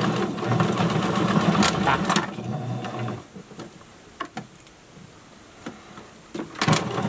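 Domestic sewing machine running at speed, stitching a straight seam through fleece, and stopping about three seconds in. A few light clicks follow, then a sharper knock near the end.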